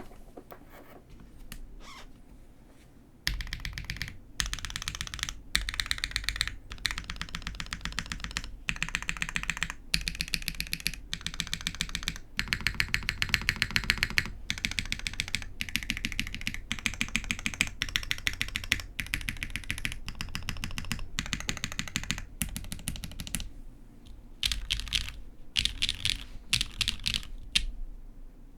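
Custom TGR x Singa Unikorn R2.1 polycarbonate keyboard with lubed Zaku linear switches on a half POM plate, struck in quick bursts of rapid keystrokes. After a few scattered presses, the bursts start about three seconds in and keep coming with short pauses between them.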